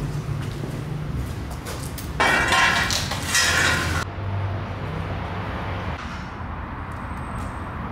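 Plastic packaging rustling and crinkling as a small parts bag and its wrapping are handled, loudest for nearly two seconds starting about two seconds in, over a steady low hum.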